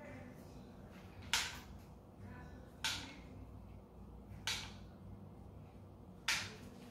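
Cartridge dispensing gun for bite-registration compound clicking sharply four times, about every one and a half seconds, as its trigger is squeezed to push the blue compound onto a bite fork.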